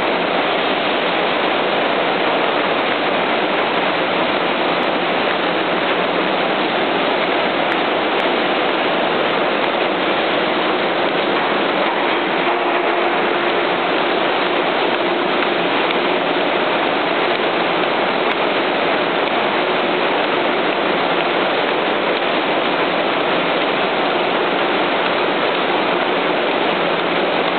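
Citrus packing and sizing line running while loaded with mandarins: brush rollers, conveyors and singulator cups moving the fruit, giving a dense, steady, even noise that does not change.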